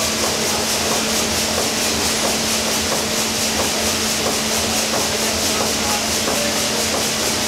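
1955 Lobnitz-built 800 hp triple-expansion reciprocating steam engine running: a steady mechanical clatter with a quick, even rhythmic beat over a constant hum.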